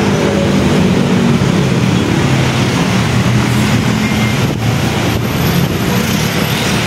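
Busy city road traffic: a steady rush of cars, trucks and motorcycles, with the low hum of engines passing below.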